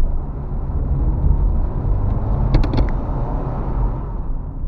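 Patrol car driving, heard from inside the cabin: a steady low engine and road rumble, with a quick cluster of about four sharp clicks about two and a half seconds in.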